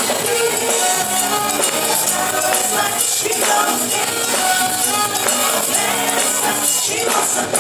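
Live band music with bright tambourine-like percussion and singing voices over a dense, steady backing.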